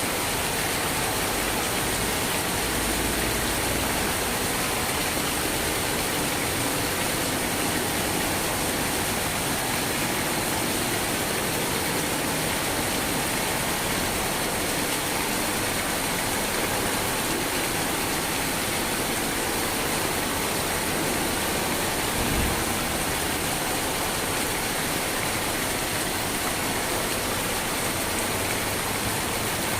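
Steady, dense rainfall hiss. A short low thump about three-quarters of the way through.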